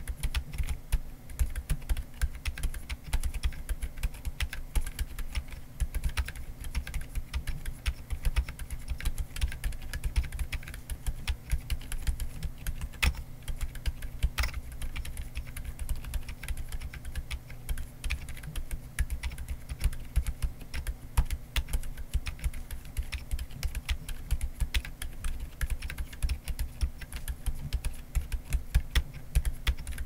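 Continuous typing on an Akko ACR Top 40 acrylic-cased 40% keyboard with Akko Fairy silent linear switches and SA profile double-shot ABS keycaps. The keystrokes are mostly low thuds, with a couple of sharper clacks around the middle.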